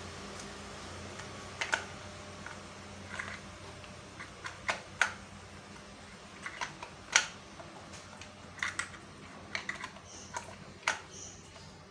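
Irregular light clicks and knocks as a Peugeot 406 starter motor is handled and turned over in the hands, its metal housing and parts tapping and clinking.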